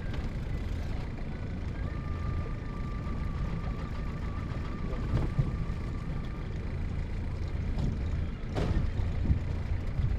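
Steady low hum of the boat's motor running, with a thin steady whistle-like tone for a few seconds in the middle and a sharp knock near the end.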